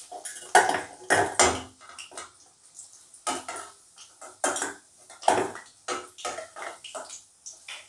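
Wooden spatula scraping and knocking against a steel kadhai and a steel bowl in irregular clatters as batter-fried cauliflower pieces are lifted out of the oil. Hot oil sizzles underneath.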